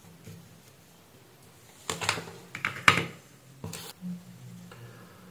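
A few sharp clicks and knocks from electronic parts and tools being handled on a workbench during a capacitor replacement. The clicks come in two clusters about two and three seconds in, the loudest near three seconds, with one more single knock shortly after.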